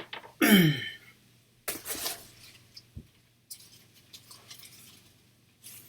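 A cardboard shipping box and its packing being opened and handled. About half a second in there is a short squeak that falls in pitch, followed by bursts of rustling and scraping.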